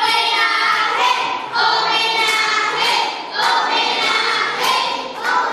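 High-pitched voices singing a tune in short phrases of held notes.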